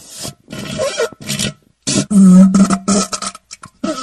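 Diarrhea sound effect: wet, sputtering farts in a string of short bursts, the loudest a low buzzing blast about two seconds in that lasts roughly a second, followed by a few small splutters.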